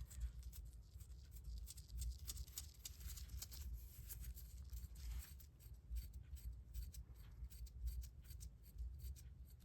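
Zippo lighter's flint wheel being rolled and worked with oil to free it: a quiet run of irregular scratchy clicks and rubbing. The wheel is stiff and seized with age.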